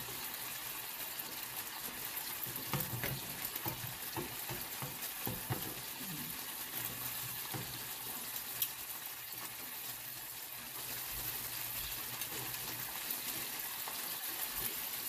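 Ilocos longganisa sausages sizzling in a non-stick frying pan, the boiling water already cooked off so they fry in their own fat. Scattered clicks of metal tongs and a knife against the pan come through as the sausages are cut in the pan.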